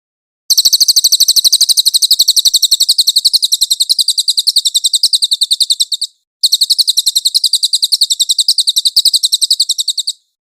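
Cililin bird singing: two long, very high-pitched trills of rapid, evenly repeated notes, about a dozen a second, with a brief break between them, recorded clean as a masteran for training other songbirds.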